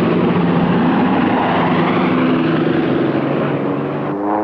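Radial-engine propeller biplane running at full power as it takes off from a carrier deck and climbs away, its engine note easing slightly lower as it goes. Just before the end the engine sound cuts off and a low, steady horn-like tone begins.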